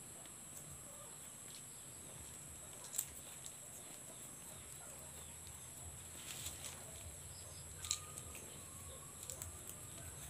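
Faint crinkling and clicking of hands handling a plastic bag and a woven sack, in scattered small bursts that are loudest about three seconds in and near eight seconds, over a steady high hiss.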